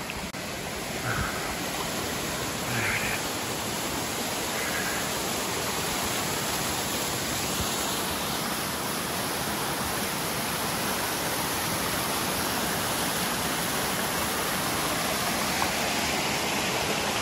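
Small waterfall pouring down a granite rock face, a steady rushing hiss of falling water that grows a little louder in the first seconds and then holds even.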